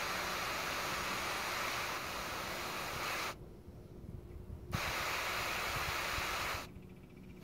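Water hissing out of a small irrigation mister nozzle as a fine spray; the hiss cuts off abruptly twice, once for about a second and a half around the middle and again near the end. A steady low hum from the running AC condenser unit continues underneath.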